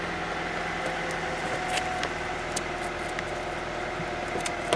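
Steady mechanical hum, like an idling vehicle engine, with a few faint light clicks over it.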